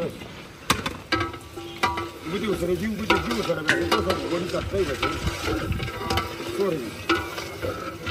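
A long metal ladle stirring and scraping through a large steaming cooking pot over a wood fire, with irregular knocks of metal on metal against a sizzling hiss.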